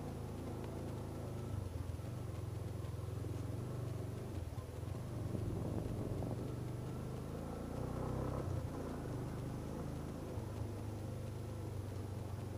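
Yamaha YBR250's single-cylinder four-stroke engine running steadily as the motorcycle rides along a dirt track, its low note shifting a couple of times.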